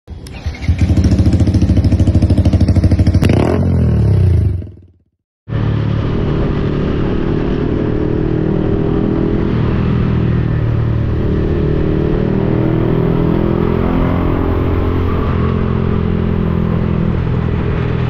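Yamaha XSR155's single-cylinder engine through an aftermarket Akrapovic-replica exhaust. It revs loudly for the first few seconds, the revs falling away about three seconds in, then cuts to a brief silence. From about five seconds it runs steadily while riding, its pitch drifting up and down.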